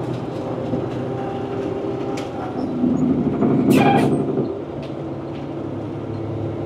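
Semi truck's diesel engine and road noise inside the cab at highway speed, a steady drone. About three seconds in it swells louder for a second or so, with a short hiss near four seconds.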